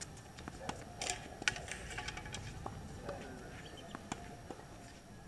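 Tennis balls being hit with rackets and bouncing on a hard court in a quick doubles exchange at the net: a string of sharp irregular pops, the loudest about a second and a half in, thinning out near the end as the point finishes.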